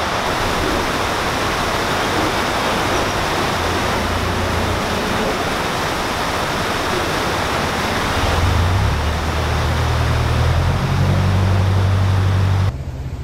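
Water rushing steadily through the paddles of a canal lock. A low hum joins in about eight seconds in, and the sound cuts off sharply near the end.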